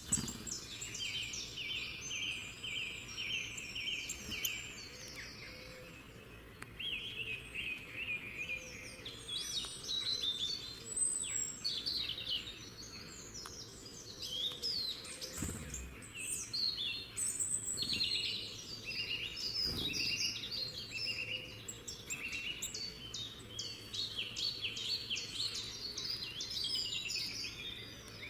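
Several birds singing together, a dense chorus of overlapping chirps and quick repeated trills over a faint steady background.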